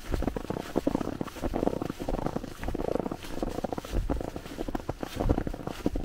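Footsteps crunching through snow at a steady walking pace, each step a close, crackly crunch.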